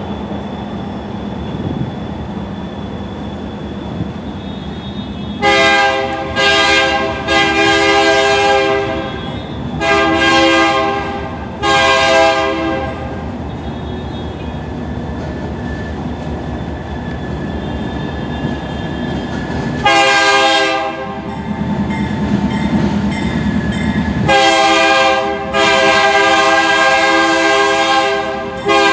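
Diesel freight locomotive's multi-tone air horn sounding a series of blasts, about seven in all, the last one long and held for about four seconds near the end, over the steady rumble of the approaching train.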